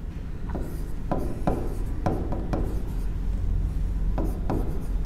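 Pen tip tapping and scratching on an interactive display screen as handwriting is written: a string of short, sharp ticks, about eight, over a steady low hum.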